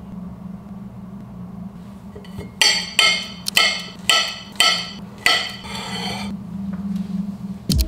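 Six sharp, ringing knocks of a hard object, about two a second, over a steady low hum.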